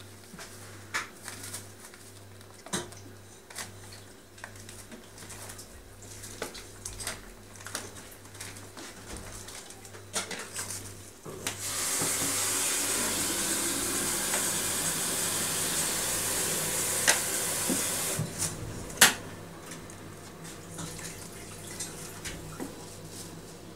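Light scratches, taps and clicks of kittens playing around a sisal scratching post and metal food bowls. About halfway through, a steady rushing hiss sets in for about six seconds, with a couple of sharp knocks near its end.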